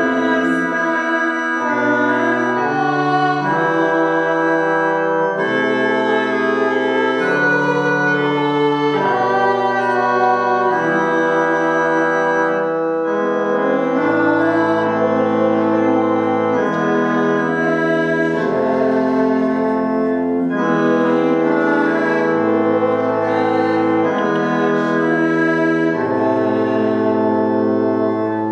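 Organ playing a hymn tune in slow, held chords, the chord changing every second or two.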